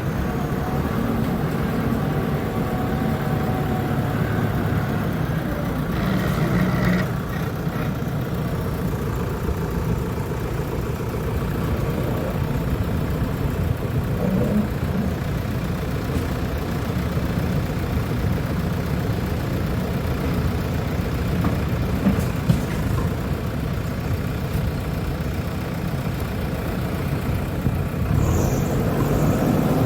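Backhoe loader's diesel engine running steadily while being operated, with a brief rise in noise about six seconds in and a single sharp knock about two-thirds of the way through.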